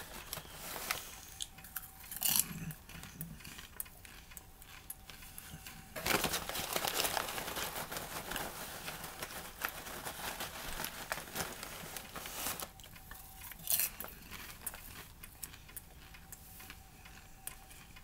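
Brown paper microwave-popcorn bag rustling and crinkling, with a longer stretch of rustling in the middle. Scattered small crunches and clicks of popcorn being handled and chewed run throughout.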